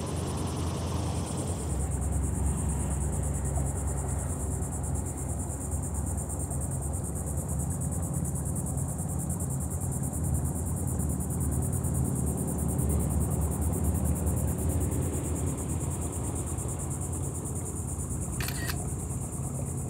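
Steady high-pitched insect chorus of crickets, over a low rumble, with one short click near the end.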